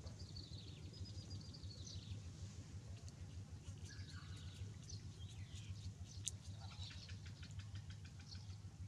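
High-pitched animal chirps and squeaky trills in short runs over a steady low hum. Near the end comes a quick run of ticking chirps, about six a second, just after a single sharp click.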